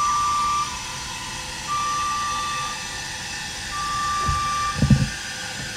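Scissor lift's descent alarm beeping as the platform lowers: one steady tone, about a second on and a second off. Two low thuds come near the end, the second the loudest.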